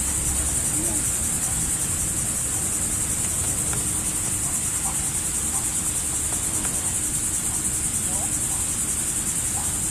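Insect chorus outdoors: a loud, steady, high-pitched trilling buzz with a fast pulse, over a low background rumble.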